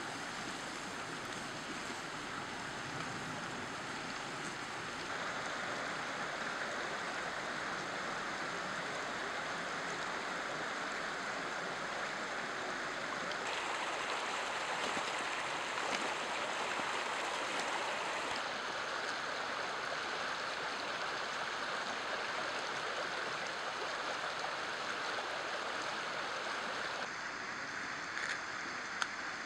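Steady rushing of a muddy, flood-swollen creek, its level shifting at a few cuts, with a thin steady high whine behind it. A couple of brief knocks near the end.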